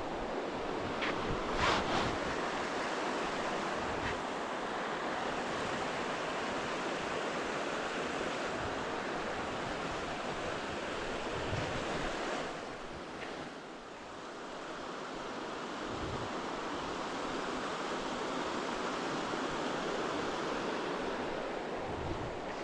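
Waterfall rushing steadily, an even hiss of falling water. A few short knocks sound about two seconds in, and the rush drops briefly a little past halfway.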